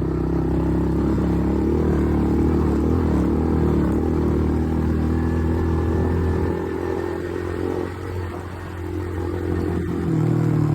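ATV engine running steadily while riding, easing off about two-thirds of the way through and picking up again near the end.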